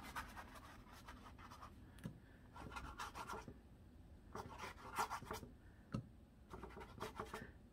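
Paintbrush bristles brushing water across a stretched canvas: faint scratchy strokes in about four short bursts.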